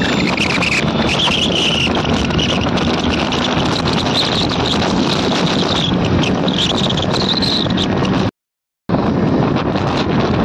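Wind rushing over the microphone with engine and road noise from a moving motorcycle, a steady roar. It drops out completely for about half a second near the end, then resumes.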